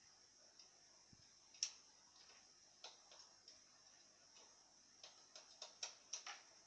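Near silence with faint, irregular clicks: one sharper click early on, a few scattered ones, then a quick run of clicks near the end, over a steady faint high hiss.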